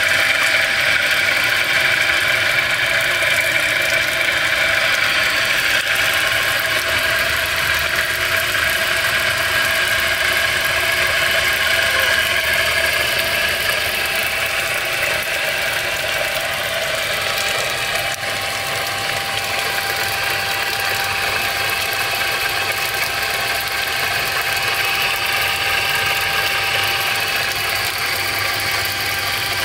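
Homemade brushless motor belt-driving a small water pump, running at steady speed with a constant whine. Water jets from the pump's outlet and splashes into a metal basin.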